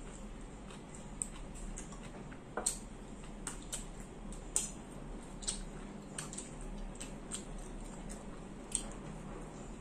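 Eating at a table: metal forks and spoons clicking and scraping against plates, about ten irregular sharp clicks over a steady low room background.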